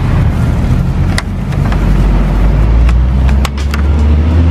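A motor vehicle's engine running close by on the street, settling into a steady low hum about three and a half seconds in. Sharp clicks and crackles of a clear plastic clamshell box being handled sound over it.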